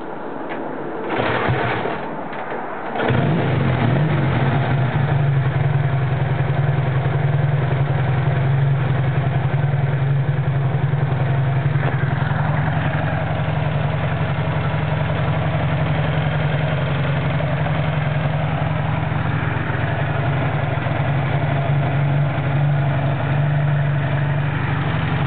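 Classic Triumph Thunderbird motorcycle engine starting: a short burst about a second in, then it catches about three seconds in and runs steadily at idle. It runs with the coil fed straight from the battery, bypassing the faulty ignition switch.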